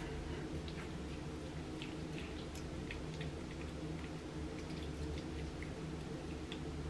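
Fingertips massaging a cleansing balm over the face: many faint, irregular wet squishes and small sticky clicks of oiled skin, over a steady low hum.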